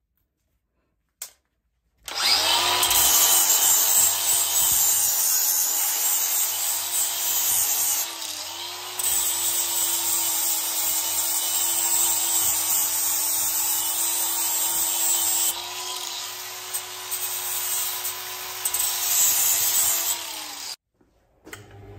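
DeWalt angle grinder running with its abrasive disc against a copper ingot: a steady motor whine under a harsh grinding hiss. It starts about two seconds in, dips briefly around eight seconds, and cuts off near the end.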